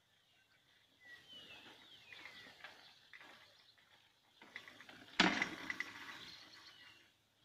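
Horses eating hard feed from a plastic bucket hung on a metal gate: irregular rustling and munching, and a loud knock about five seconds in with a brief metallic ring as the bucket rattles against the gate.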